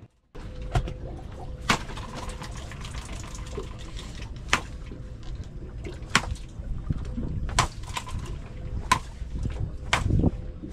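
Water sloshing and splashing, with sharp knocks every second or two and a faint steady tone underneath.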